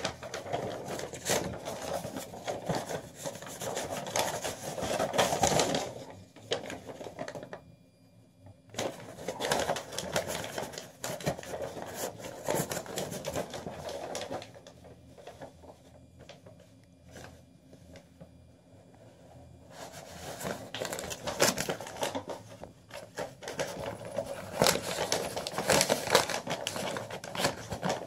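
Paper rustling and scraping as a sheet of junk mail is waggled back and forth under a door and pawed at by a cat. It comes in three spells of several seconds each, with quieter pauses between them.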